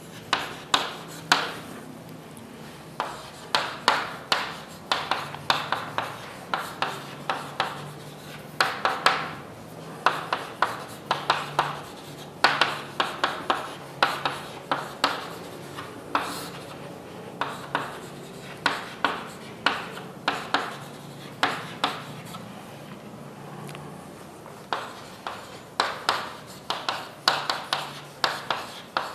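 Writing on a board: irregular clusters of quick, scratchy pen strokes and taps, with short pauses between them.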